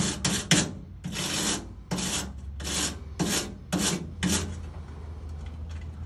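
Hand wire brush scrubbing back and forth over a small wire-mesh muffler screen clogged with carbon, in quick scraping strokes about two a second, which stop about four and a half seconds in.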